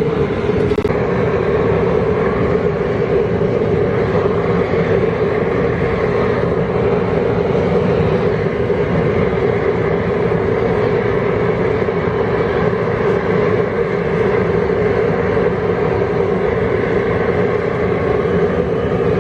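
Propane outdoor cooker burner running steadily under the boil pot: a constant rushing noise with a steady hum.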